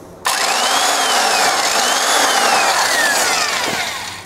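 Hitachi SB8T 3x24-inch belt sander's electric motor switched on with no belt fitted, running with a whir and a whine that rises and falls in pitch. It fades and cuts off near the end. The motor runs normally.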